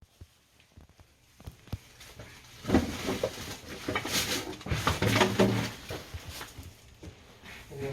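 A pet animal calling several times, mostly between about three and six seconds in, among scattered light knocks.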